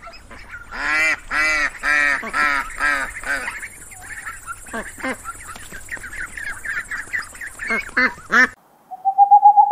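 A duck calling: a run of about six loud quacking calls, roughly two a second, then softer, scattered calls. Near the end it cuts to a steady owl hoot.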